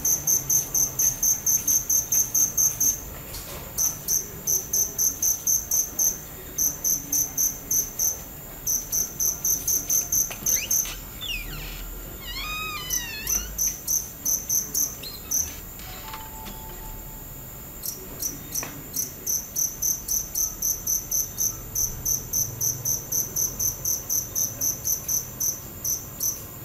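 Crickets chirping, high and rhythmic at about four chirps a second, in runs broken by short pauses. Around the middle the chirping stops for several seconds and a brief wavering call is heard; then the chirping resumes and stops shortly before the end.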